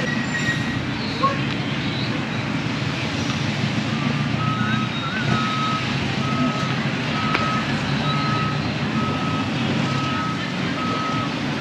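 A vehicle's reversing alarm, sounding a single high beep over and over at an even pace, starting about four seconds in. Under it is a running engine and street traffic.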